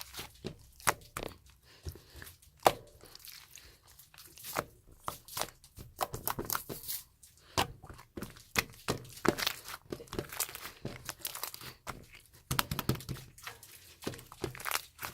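Pink slime with a tough, chewy texture being squished, stretched and folded by hand, making irregular sticky clicks, crackles and pops.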